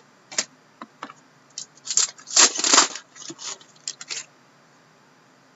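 Trading cards being handled and sorted by hand: a series of light clicks and taps, with a louder rustling scrape about two and a half seconds in.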